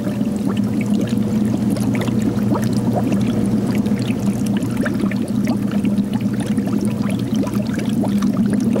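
Water in a lobster tank bubbling and trickling steadily, with many small crackling pops.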